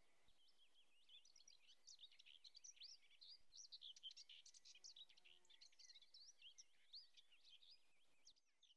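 Faint bird chirping: many quick, high twittering calls overlapping, which stop abruptly near the end.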